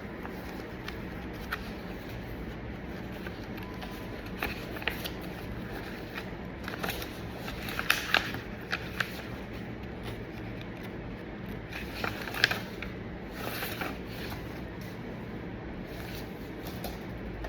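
Paper documents being handled: intermittent rustling, sliding and light taps of sheets, over a steady low background hum.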